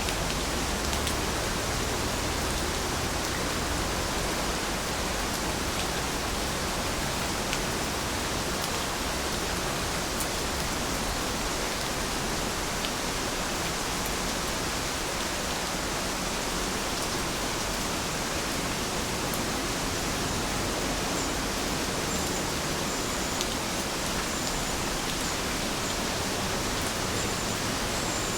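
Steady rain falling: a dense, even hiss with the odd sharper drop tick.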